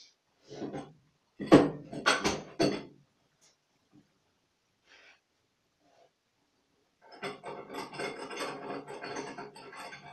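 Wooden 2x4 boards being handled: a few loud knocks and clunks of wood on wood in the first three seconds, then from about seven seconds in a steady rough scraping and rubbing of wood.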